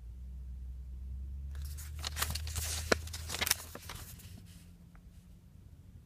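Paper pages of a printed instruction manual rustling and crackling as they are turned, with a few sharp clicks, for about two and a half seconds starting a second and a half in. A low steady rumble runs underneath.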